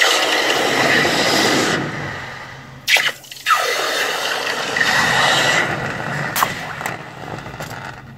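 Hot freshly cast copper bars being quenched in a pot of water, the water hissing and bubbling against the metal. There is a sharp knock about three seconds in, after which the hissing picks up again and slowly fades.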